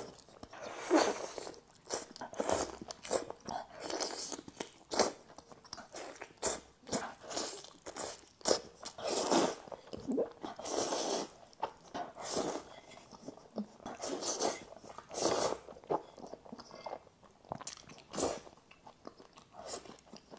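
Close-miked eating sounds: biting into and chewing roast chicken, and slurping dark sauced noodles, as a string of irregular crunches, bites and chews.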